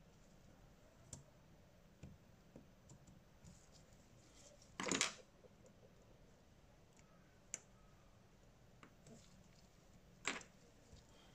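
Scattered small clicks and light clacks of tools and smartphone parts being handled. The loudest clack comes about five seconds in, a sharp tick a little later, and another clack near the end.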